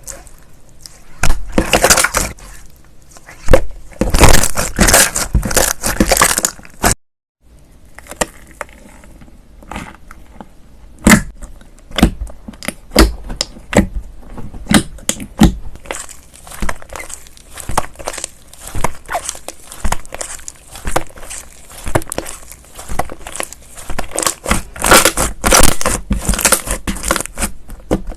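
Slime being squeezed and pressed by hand, crackling and crunching in dense bursts. After a short cut to silence at about seven seconds, it goes on as a run of quick separate pops and crackles, about one or two a second.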